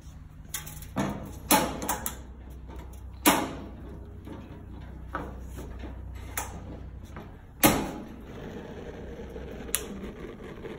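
Side gas burner of a Brinkmann 3251 grill being lit: several sharp clicks from the push-and-turn igniter knob. After the loudest click, about three-quarters of the way through, the gas catches and the burner runs with a soft steady hiss.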